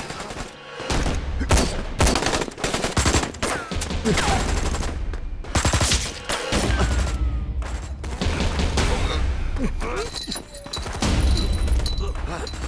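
Gunfight sound effects for a film: rapid volleys of handgun and rifle shots, many in quick succession, with a low rumble underneath and brief lulls near the start and about halfway through.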